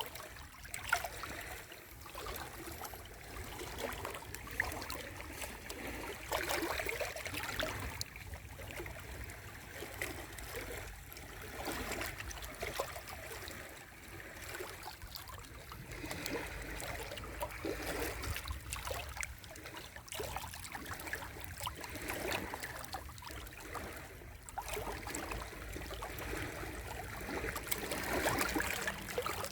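Sea waves washing and lapping at the shore: a continuous splashing wash of water that swells and eases every few seconds.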